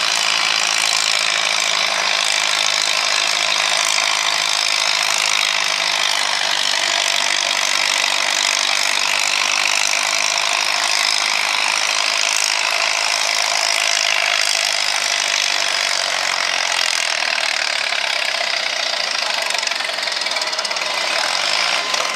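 Farmall M tractor's engine running hard under load while pulling a weight-transfer sled, a steady loud mechanical noise with a high whine over it, easing slightly near the end.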